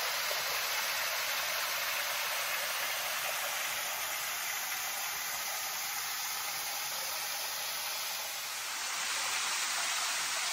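Waterfall rushing steadily: an even, constant hiss of falling water.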